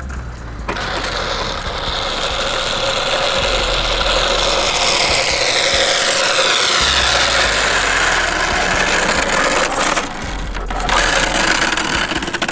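Brushless-powered 1/8-scale RC car (Redcat Earthquake 8E) running on asphalt: a high motor and gear whine with tyre noise, its pitch sliding down in the middle of the run, dropping away briefly near the end and then picking up again.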